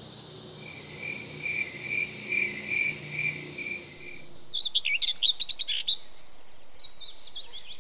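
Nature ambience: a chirping call repeating about twice a second over a faint low hum, giving way about four and a half seconds in to birds singing in quick, high falling notes.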